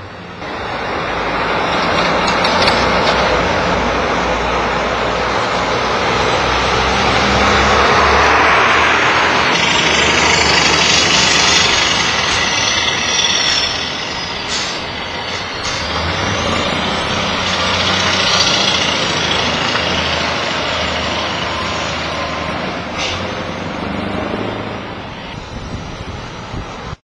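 Heavy diesel tipper truck driving slowly through a roundabout close by, its engine running and its tyres hissing on the road, swelling to a peak about a third of the way in. A thin high squeal falls in pitch near the middle. Lighter car traffic follows.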